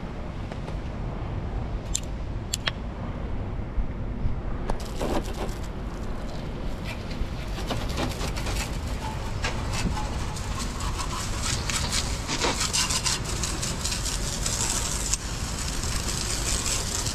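Water spraying from a pistol-grip hose nozzle onto fibreglass deck and mast fittings, a steady hiss that grows stronger in the second half, with wind rumbling on the microphone. Two sharp clicks about two seconds in.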